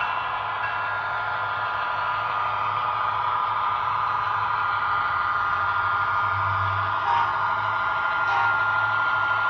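Model diesel locomotive running along the layout track: a steady mechanical hum and whir.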